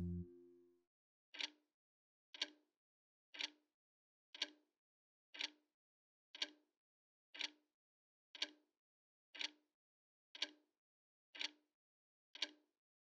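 A timepiece ticking once a second: a dozen short, sharp ticks, evenly spaced, starting about a second and a half in.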